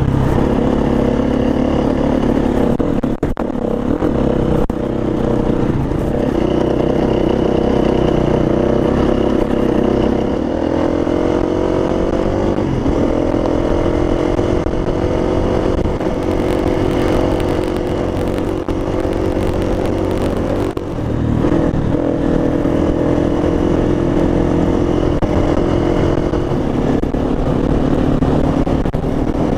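KTM enduro motorcycle engine running under way on a stony track, heard from on the bike, with occasional knocks from the ride. The engine note rises about ten seconds in and dips briefly about twenty-one seconds in.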